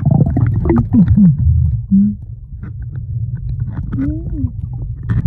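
Muffled sound of seawater recorded with the phone held underwater: a low, rumbling wash of water against the microphone. A few muffled rising-and-falling voice-like tones come through it.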